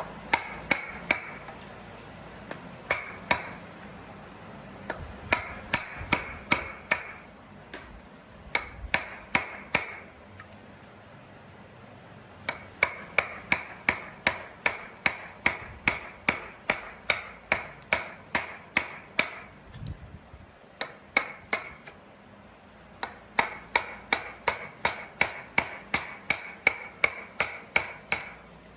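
Hammer blows struck in runs of several, about three a second, each with a short ring, with brief pauses between the runs.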